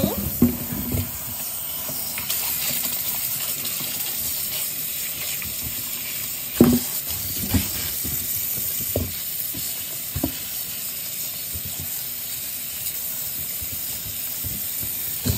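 Kitchen tap running steadily onto cucumbers in a sink as a hand rubs them clean under the stream, with a few dull knocks as the cucumbers bump against each other and the sink.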